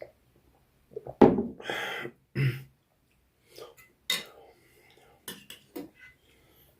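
Cutlery clinking and scraping against a plate during a meal, loudest in a cluster about a second in, then a few sharp clicks near the end.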